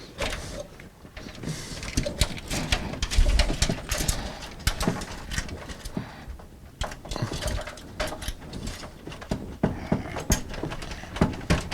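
Irregular clicks, knocks and rattles of metal and plastic computer parts being handled and pulled apart while a desktop PC is disassembled, with a cluster of heavier knocks about three to four seconds in.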